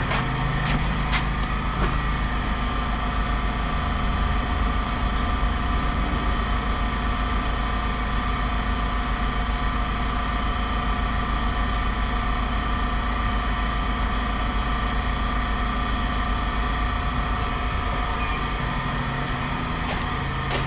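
An engine idling steadily, an even hum that holds the same pitch throughout, with a few faint clicks near the start.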